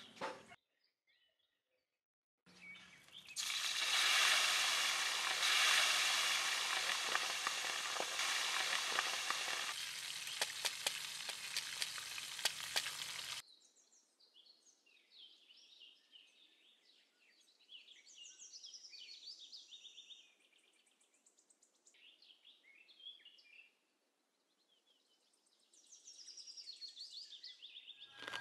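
Hot oil sizzling and crackling loudly as a pork leg deep-fries. The sizzle cuts off abruptly about halfway through, leaving only faint, patchy high-pitched sounds.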